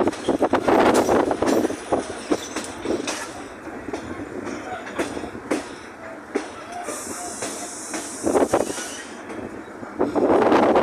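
Toshiba electric train car running on the Urquiza line, heard from inside the car: a rumble and irregular clacks of the wheels over the rail joints. It is quieter through the middle and louder again near the end, with a hiss for about two seconds a little past the middle.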